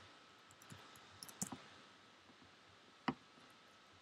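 Faint keystrokes on a computer keyboard as a password is typed, with one louder, sharper click about three seconds in.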